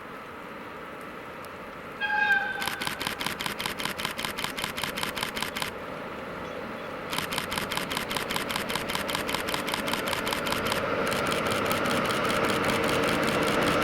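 Camera shutter firing in rapid continuous bursts, three runs of quick evenly spaced clicks, preceded by a brief high tone. Underneath, an approaching train's noise grows steadily louder.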